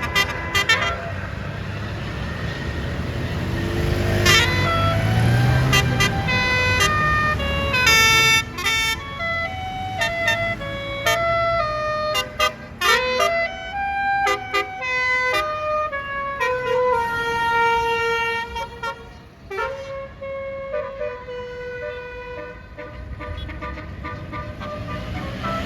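Basuri telolet horn on a bus playing a long tune of quick stepped notes, with a few longer held notes in the second half. A bus engine runs low underneath.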